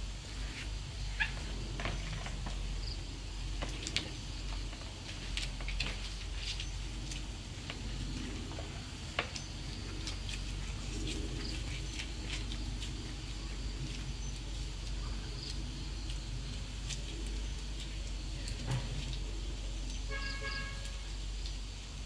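A low steady hum with scattered light clicks and taps, and near the end one short animal call lasting about a second.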